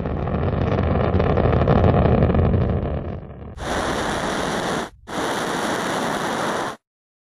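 Space Shuttle launch: the deep, steady roar of the ascending shuttle's engines and boosters for about three seconds. Then comes an abrupt change to an even, hissing rush of noise from the onboard camera during ascent. That rush drops out briefly near the middle and cuts off about half a second before the end.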